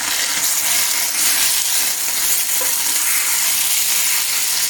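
Yogurt-marinated chicken pieces frying in oil on high heat, a steady sizzling hiss as they brown.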